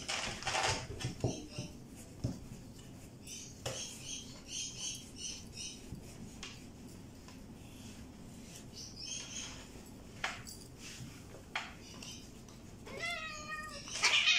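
Grooming scissors snipping through a cat's fur in quick runs of several cuts. Near the end the cat gives a long, wavering meow.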